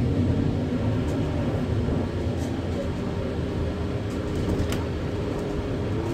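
Irisbus Citelis 12 city bus running through town, heard from inside the passenger cabin: a steady low engine and drivetrain rumble, with a faint whine that fades out in the first two seconds.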